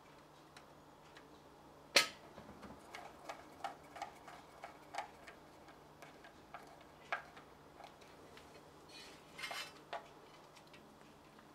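Small screwdriver turning a terminal screw as the earth wire is fastened into a plastic terminal block: a sharp click about two seconds in, then a run of small ticks and clicks, with a short scrape near the end.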